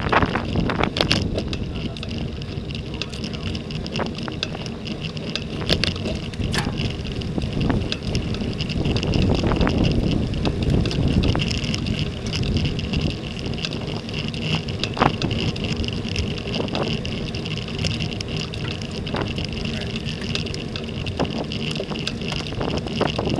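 Wind rushing over an action camera's microphone on a road bike riding in a pack, with steady tyre and road noise and scattered sharp clicks.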